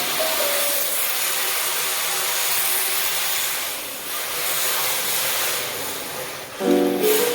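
Steady hissing rush of an RC drift car on hard 3D-printed tires, sliding as it drives, dipping briefly twice. Background music with plucked notes stops just after the start and comes back near the end.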